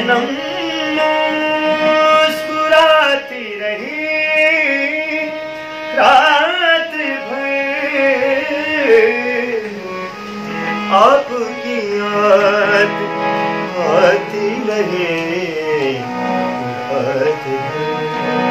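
A man singing a South Asian classical-style melody with long gliding, ornamented phrases, accompanying himself on a harmonium that holds steady sustained notes under the voice.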